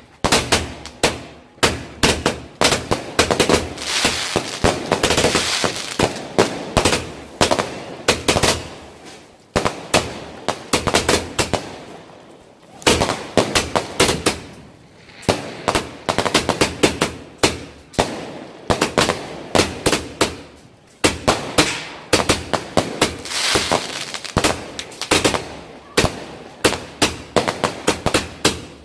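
A 240-shot firework cake firing in a rapid, unbroken string of launches and aerial bursts, several bangs a second, with stretches of crackle between them.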